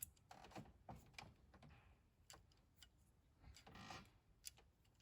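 Faint, scattered clicks and light metallic taps of a hand tool undoing the injector hold-down bolts on a 2.0 TDI engine, with a short rasp about three and a half seconds in.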